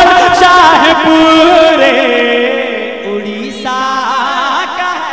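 A man singing a manqabat (an Urdu devotional song) into a microphone, in long, wavering held notes. The singing is loud at first, fades about two seconds in, swells briefly about three and a half seconds in, then fades again.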